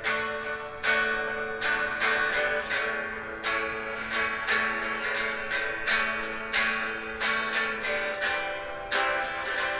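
Guitar played instrumentally: chords strummed in a steady, unhurried rhythm, each one ringing out before the next.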